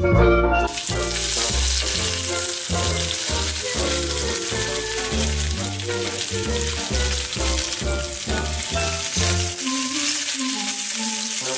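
Bacon sizzling and spitting in a hot skillet: a steady, dense frying hiss that starts about half a second in. Background music with a rhythmic bass line plays underneath, and the bass drops out near the end.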